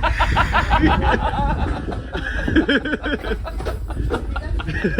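People laughing and chuckling, in quick repeated bursts at first, mixed with bits of talk, over a steady low rumble.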